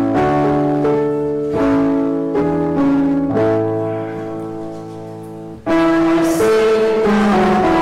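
Piano played in slow, sustained chords; about three seconds in a chord is held and dies away, then the playing comes back in loudly near the end.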